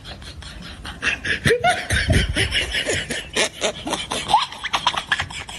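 Laughter in quick, broken bursts, starting about a second in.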